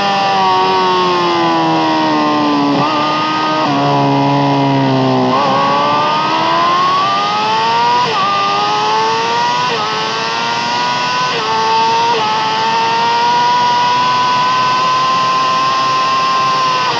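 Yamaha R6 inline-four engine with an Akrapovič exhaust, heard onboard at high revs. The pitch falls for about five seconds as the bike slows, with two short throttle blips about three and four seconds in, then climbs steadily as it accelerates again, with brief kinks at the gear changes.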